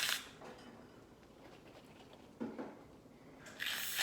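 Aerosol can of shaving cream spraying: a hiss that cuts off just after the start, a brief soft sound about halfway, then the hiss starts again near the end.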